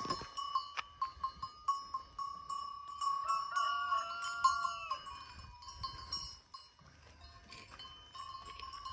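Many livestock bells clinking and ringing on a flock of sheep and goats, with one drawn-out bleat about three and a half seconds in.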